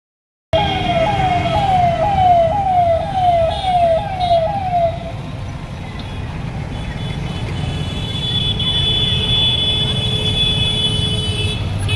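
Vehicle siren sounding a repeated falling wail, about two sweeps a second, that stops about five seconds in. A thin steady high tone follows over a low rumble of traffic engines.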